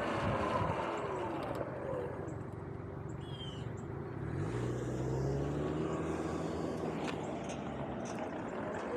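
Sur-Ron X electric dirt bike's motor whine falling in pitch as the bike slows to a stop, then rising again as it pulls away, over road and wind noise. A low steady hum sets in about four seconds in.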